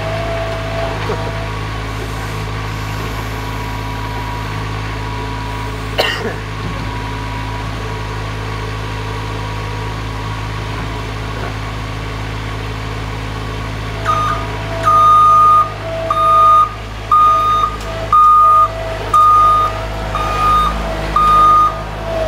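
Skid steer loader's engine running steadily, with a single sharp knock about six seconds in. About two-thirds of the way through its reversing alarm starts beeping, about once a second, as the machine backs up.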